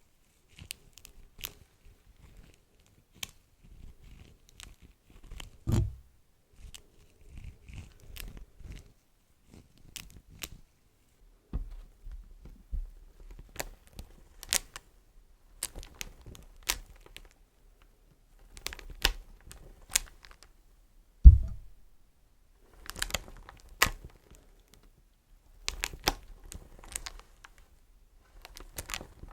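Beeswax wraps being handled close to the microphone: scattered sharp crinkles, crackles and sticky peeling sounds, with two heavier thumps, one about six seconds in and a louder one about twenty-one seconds in.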